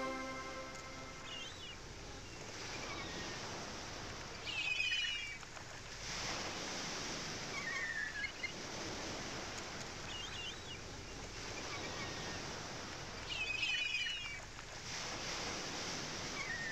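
Ocean surf washing in on the shore, rising and falling in slow swells, with small birds chirping short phrases every few seconds.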